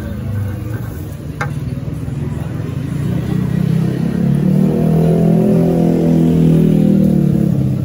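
A motor vehicle engine running close by, growing louder from about three seconds in to a steady peak, then easing off near the end.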